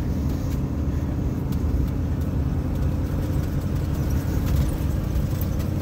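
A truck driving slowly on a dirt road, heard from inside the cab: a steady low engine and road rumble.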